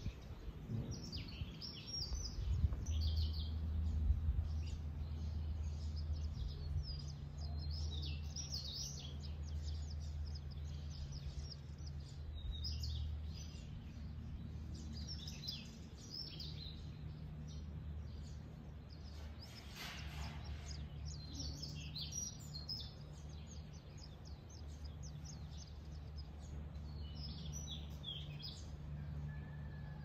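Small birds chirping in many short, scattered calls over a steady low hum. A brief rush of noise about twenty seconds in.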